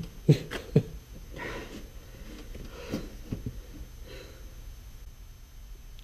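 A man breathing hard and grunting as he shifts in a seat held by a fixed, non-retracting seat belt. Two short loud bursts come near the start, followed by softer breaths, rustling of clothing and belt webbing, and a few small knocks.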